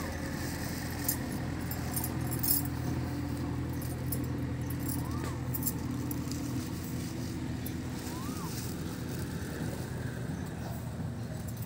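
A steady low mechanical hum runs throughout. Light metallic clinks and jingles come mostly in the first few seconds.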